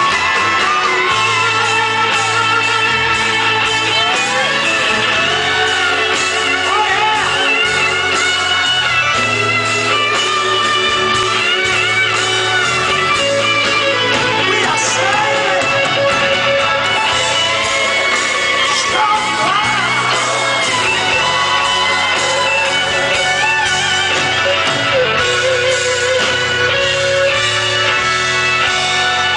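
Live rock band playing through a concert sound system: electric guitar, bass and drums, with a lead singer and backing vocalists singing together at the microphones. The large hall gives it an echo.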